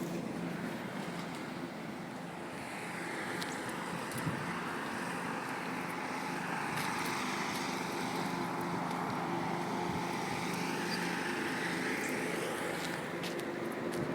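Traffic noise: vehicles passing, swelling and fading twice over a steady low hum, with a few faint ticks.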